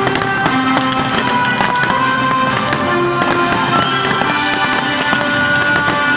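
Fireworks going off in quick succession, a dense stream of sharp cracks and pops, over loud music with sustained tones.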